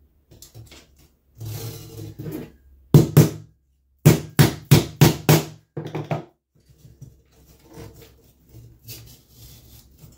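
Aluminium Zee Bar carpet trim knocking against the wooden floor as it is worked into a curve. A short scrape comes first, then a quick run of sharp knocks, about five a second, around the middle.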